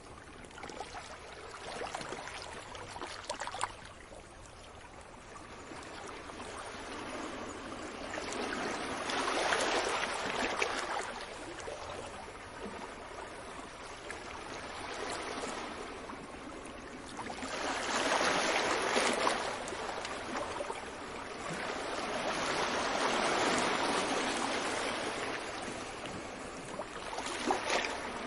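Sea waves washing onto a beach, the rush of water swelling and fading away every several seconds.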